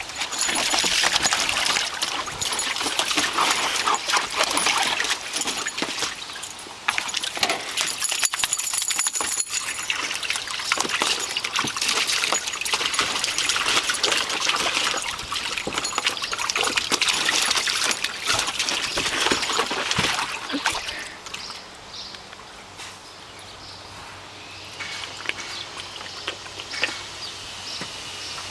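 A puppy splashing and pawing in shallow water in a plastic kiddy pool: dense splashes and drips. The splashing eases off about two-thirds of the way through, leaving quieter, scattered splashes.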